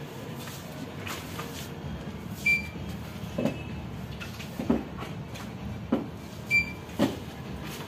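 Steady low background hum with four soft knocks about a second apart, and two short high electronic beeps, one a few seconds in and one near the end.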